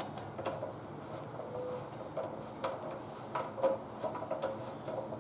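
Irregular light metallic clicks and knocks from a motorcycle front axle being threaded into the fork with a large hex key.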